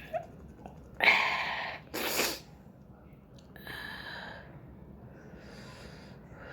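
A person sneezing, set off by tickling the inside of the nose with a cotton bud: a loud burst about a second in, a sharper one about a second later, then two quieter breathy noises.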